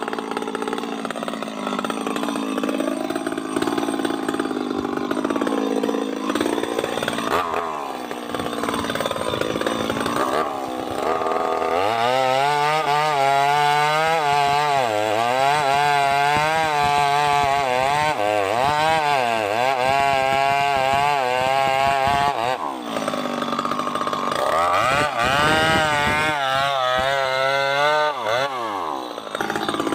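Two-stroke chainsaw running under load while felling hardwood, its engine note wavering up and down as the chain bites. The engine eases briefly about two thirds of the way in, then picks up again and drops in pitch near the end.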